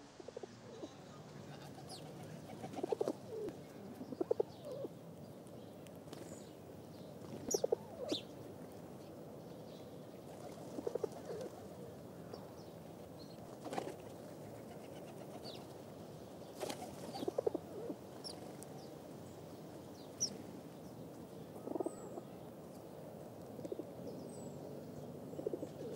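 Pigeons cooing in short pulsing bouts every few seconds, with brief high chirps from small birds now and then over a faint steady outdoor background.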